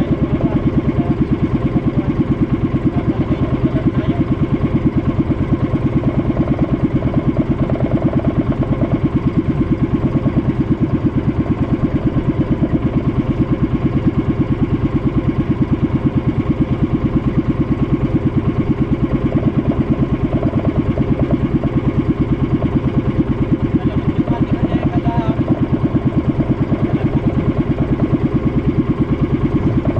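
Boat engine running steadily at a constant speed, with a fast, even pulse.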